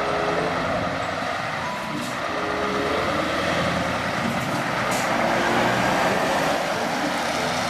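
Steady hiss of water washing the mud off a toy container truck.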